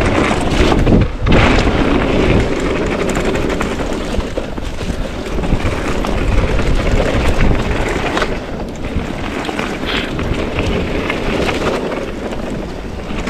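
Wind buffeting the microphone and a mountain bike's tyres rumbling over a fast trail descent, with brief knocks and rattles from the bike over rough ground.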